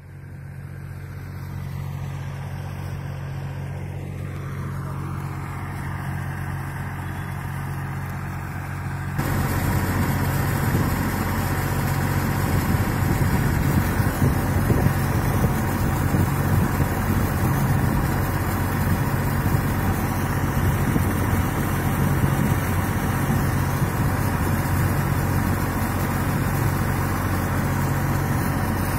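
Tractor engine running steadily, driving a PTO-mounted dewatering pump. About nine seconds in, the loud rush and splash of water gushing from the pump's outlet pipe comes in over the engine.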